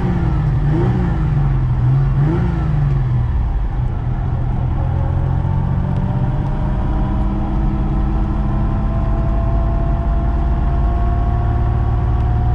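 Ferrari Dino 246's V6 engine running under way, heard from inside the cabin. Its note rises and falls twice in the first few seconds, then climbs slowly and steadily as the car gathers speed.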